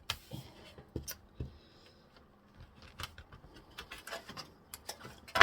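Scattered small clicks and taps of plastic laptop parts being handled and pressed into place, with soft rubbing between them.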